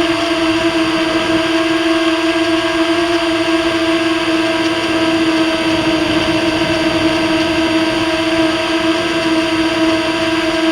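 FPV drone's electric motors and propellers running at a steady speed: a loud, constant whine held at one pitch over a rushing hiss.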